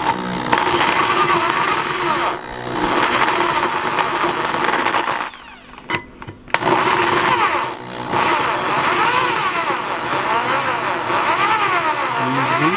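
Power drill boring slowly into a metal sailboat mast, run in several pushes with short stops. The motor's pitch wavers up and down as the bit bites.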